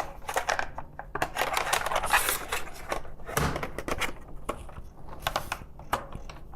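Plastic clicks and knocks as a plastic wrist rest is pushed into the two holes on the front edge of a mechanical keyboard's case, with a brief rustle about two seconds in. The wrist rest does not clip in firmly and only lies against the case.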